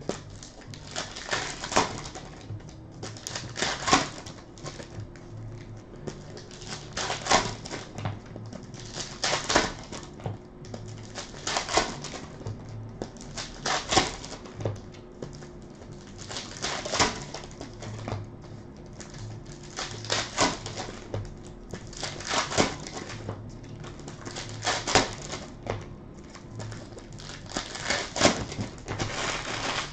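Trading cards and foil pack wrappers being handled on a table: a short cluster of crisp clicks and rustling every two to three seconds as packs are opened and cards are flipped and laid down.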